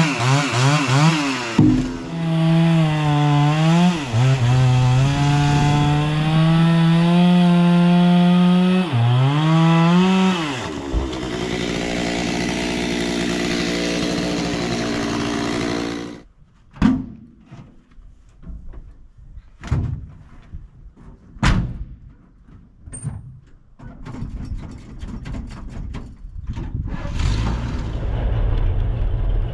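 Husqvarna 266 XP chainsaw with a 72 cc big-bore kit cutting a log, its revs rising and falling under load, then idling for a few seconds before it is shut off about halfway through. Scattered knocks and thumps follow, and near the end another engine starts running.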